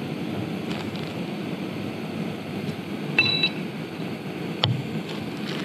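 JetBoil Flash camping stove's gas burner running steadily as it heats a pot of water, which is just starting to bubble. About three seconds in a short electronic beep sounds, and a sharp click follows a second and a half later.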